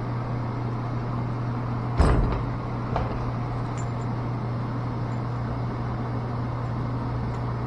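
Steady low mechanical hum, with a sharp knock about two seconds in and a lighter knock a second later.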